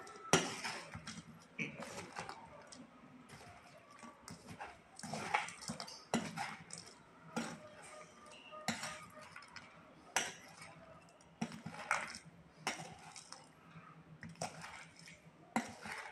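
A metal spoon scraping and knocking against a plate as soaked flattened rice is mixed with sugar: short, irregular scrapes and clinks every second or two.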